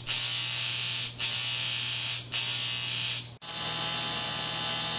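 Electric arc welding on an aluminum post and base plate: a steady buzzing hiss from the arc that breaks off briefly about one, two and three seconds in, and sounds duller after the last break.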